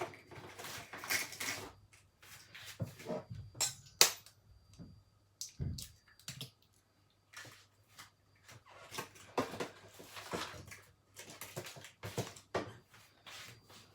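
Eggs being cracked into a mixing bowl: scattered clicks and knocks of shells and bowl, with one sharp crack about four seconds in.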